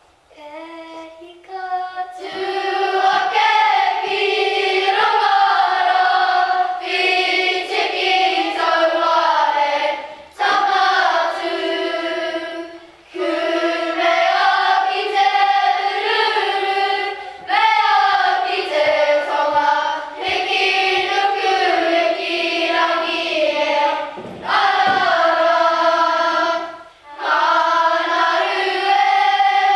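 A children's kapa haka group singing a Māori waiata together in phrases with short breaths between them. A few voices start about half a second in and the full group joins about two seconds in.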